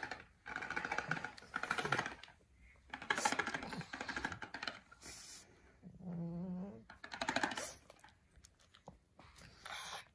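Pekingese dog breathing noisily in short bursts of rapid, rattling breaths, the snuffling of a flat-faced dog. About six seconds in there is a brief low pitched sound.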